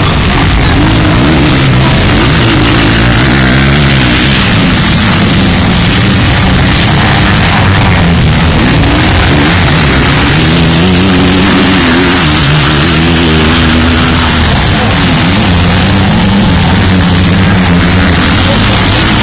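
Motocross motorcycle engines revving hard, their pitch rising and falling again and again as the bikes race round a dirt track, loud throughout.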